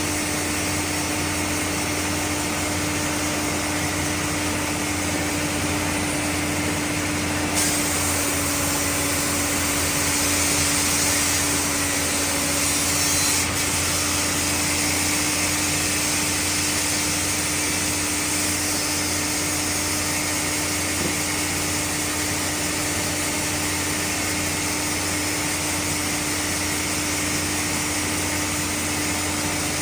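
Sawmill machinery running steadily with a constant hum. About a quarter of the way in, a brighter hiss joins for some six seconds and then cuts off abruptly.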